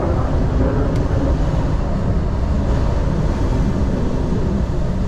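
Steady low rumble inside a lorry cab at motorway speed: engine and tyre noise.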